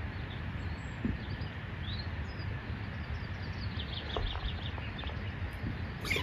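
Outdoor garden ambience: songbirds chirping faintly, with a quick trill of repeated high notes about four seconds in, over a steady low background noise.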